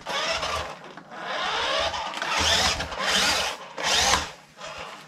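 Vintage Nikko 1/18-scale Porsche 956 RC car's small electric drive motor and gears whirring in several short bursts, the pitch rising and falling with each burst as the car is driven back and forth on a tabletop. The car runs again but is not yet steering.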